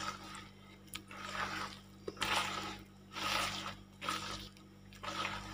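A hand squelching and slapping thick rice-flour and coconut-milk batter in a plastic basin, a wet squish about once a second as the batter is beaten by hand.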